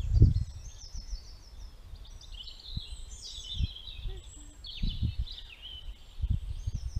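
Wild songbirds singing a continuous run of quick chirps and trills, with low wind rumbles on the microphone, the strongest just at the start.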